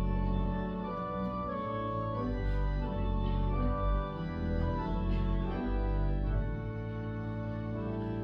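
Organ playing slow, sustained chords over a deep bass line, the chords changing every second or so.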